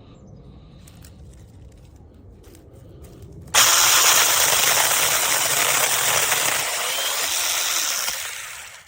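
Battery-powered HOPTO 6-inch mini chainsaw running. It comes on abruptly about a third of the way in, runs loud and steady, and winds down near the end.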